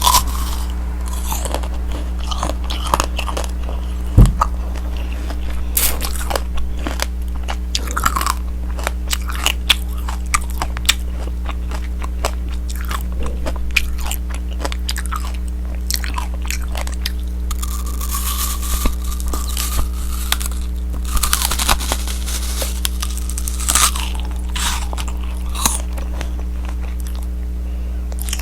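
Biting and chewing tanghulu: the hard, glassy sugar shell on the fruit cracks and crunches in quick, irregular crackles, with one sharp loud crack about four seconds in. A steady low hum runs underneath.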